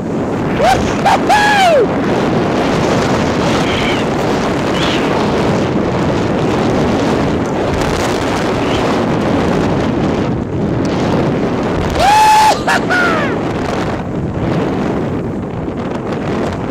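Wind rushing over the microphone during a fast powder-ski descent, a steady loud rush. Two high whooping yells cut through it, one about a second in and another about twelve seconds in.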